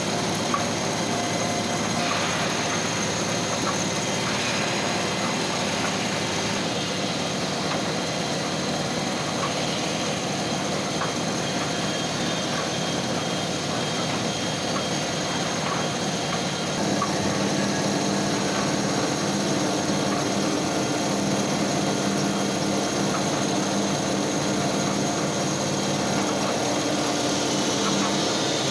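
CNC milling machine cutting a channel into a side cover: steady spindle and cutting noise with light ticking. About two-thirds of the way through the cut gets slightly louder and lower-toned.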